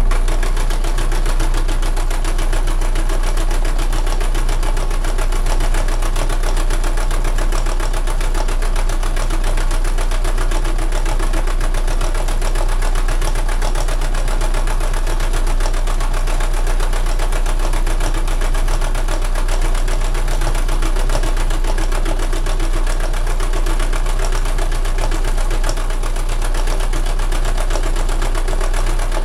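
Domestic sewing machine running steadily at a medium speed, free-motion stitching through canvas with the feed dogs lowered.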